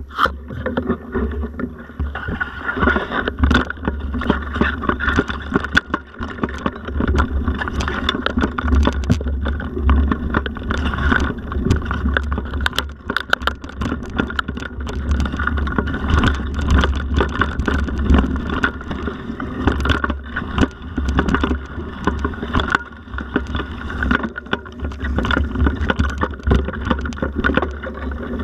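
Mountain bike ridden along a bumpy dirt forest trail: constant wind rumble on the microphone with tyre noise, and frequent clattering knocks as the bike rattles over roots and bumps.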